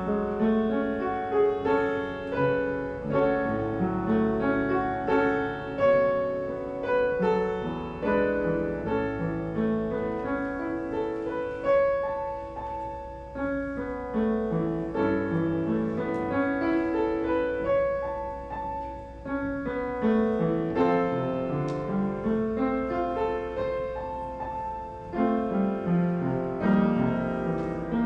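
Solo piano playing a slow, flowing instrumental piece, notes overlapping and sustained.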